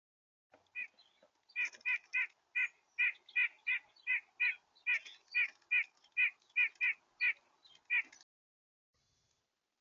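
Red-bellied woodpecker calling: a long series of short, repeated calls, about two to three a second, stopping about eight seconds in.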